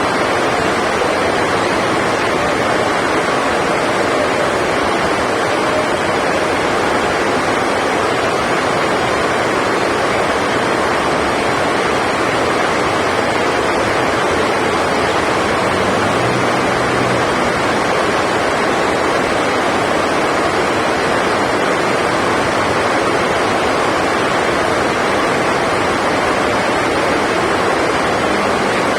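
Heavy rain making a steady, even rushing noise that masks everything else.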